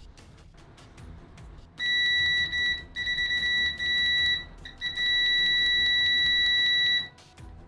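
SANWA CD800F multimeter's continuity beeper sounding a loud, steady high-pitched tone as the test leads are shorted together. It starts about two seconds in, breaks off briefly twice as the lead contact is lost, then holds for about two seconds before stopping.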